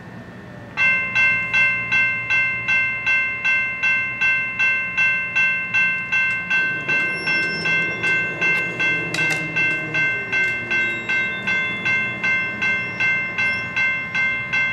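Railroad grade-crossing warning bell ringing about two to three times a second. It starts about a second in, as the flashing lights and gates come on for an approaching train, and stops at the very end. A lower rumble runs under it in the middle.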